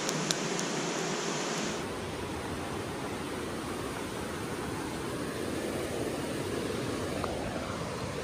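Steady rushing of a mountain river, with a few sharp pops from a wood campfire in the first second.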